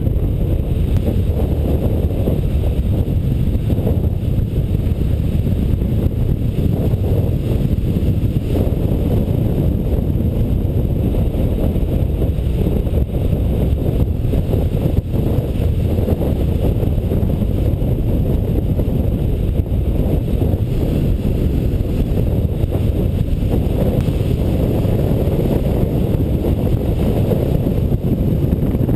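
Steady low rush of airflow buffeting the microphone of a camera mounted on a hang glider's wing in flight.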